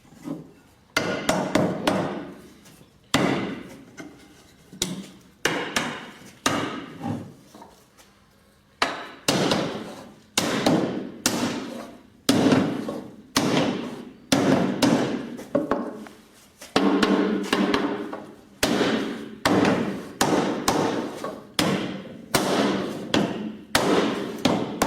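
Hammer blows knocking the glued mortise-and-tenon joints of a wooden frame home: a long run of sharp knocks on wood, about one or two a second, each ringing briefly, with a short pause about eight seconds in.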